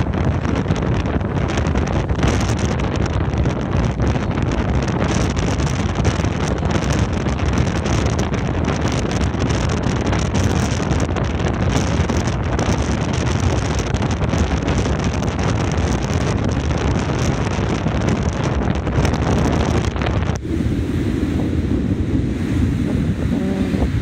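Wind buffeting the microphone over small waves breaking on the shore, a steady loud rush. About twenty seconds in, the higher hiss cuts out suddenly, leaving mostly a low rumble.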